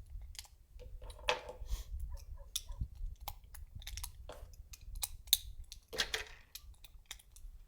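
Handling noise from a handgun: scattered small clicks and rustles, with no shots fired, over a low wind rumble.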